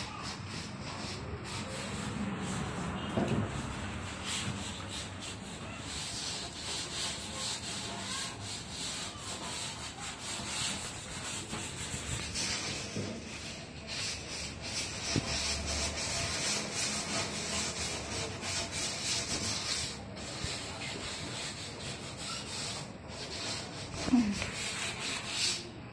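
Continuous sanding: a steady scraping and rubbing in many quick strokes, with a brief louder sound near the end.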